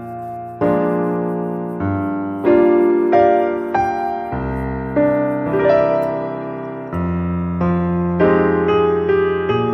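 Background piano music: slow chords and notes struck about once or twice a second, each fading away before the next.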